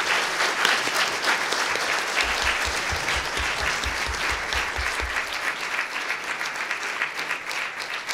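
A large seated audience applauding: many people clapping together in a steady, dense patter that eases slightly toward the end. A low, regular thudding, about four beats a second, sounds under the clapping for a few seconds in the middle.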